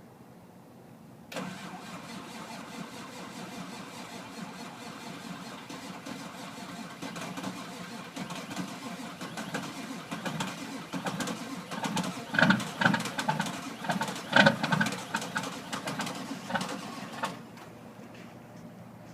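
Cold start of a 1997 Ford 7.3 L Power Stroke turbo diesel without its block heater plugged in. The engine turns over with a steady mechanical sound, then uneven loud firing builds up before the sound cuts off suddenly near the end.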